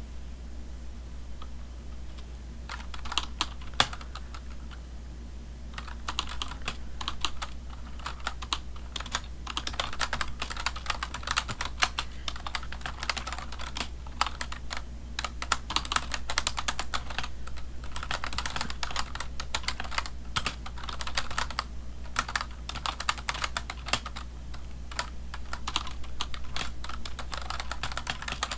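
Typing on a computer keyboard: quick runs of key clicks. The clicks begin about three seconds in, stop again for a couple of seconds, then carry on almost without a break.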